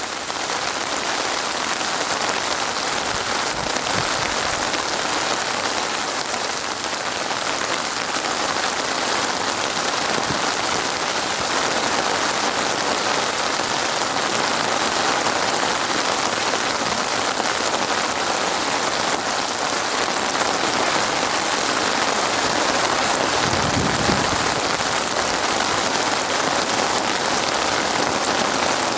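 Steady rain falling, a dense even patter of drops on a surface, with a brief low rumble about 24 seconds in.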